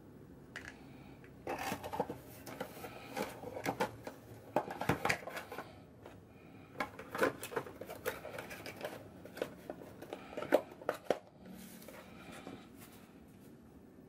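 Handling noise of unboxing: irregular rustles, scrapes and light clicks as cardboard packaging, a plastic power adapter and its cable are moved about on a table, coming in clusters with short pauses.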